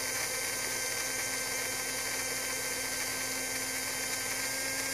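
Small Arduino-controlled electric fan running steadily at 77% of full speed, a steady hum with faint constant higher tones.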